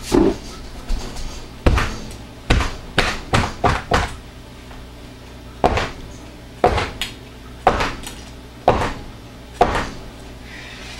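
A round mold of freshly poured, swirled soap batter on its board being banged down on the floor again and again to settle the batter and knock out air bubbles. About fifteen sharp knocks come at uneven spacing, some in quick pairs, with a pause of a second or two near the middle.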